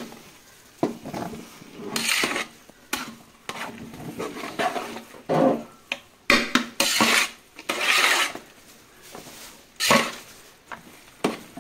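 Metal spatula scraping and knocking against the sides of a large aluminium pot in irregular strokes as beef is stirred into half-cooked rice for dum biryani.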